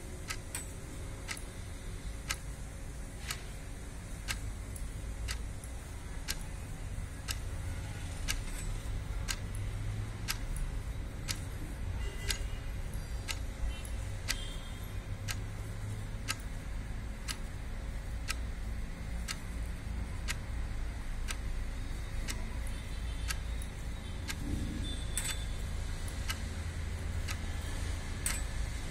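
Steady, regular ticking, about two ticks a second, over a low steady rumble.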